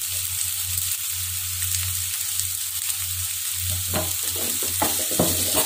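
Sliced onions, tomatoes and dried red chillies sizzling steadily as they fry in sesame oil in a nonstick pan, with a few short scrapes of a wooden spatula about four seconds in.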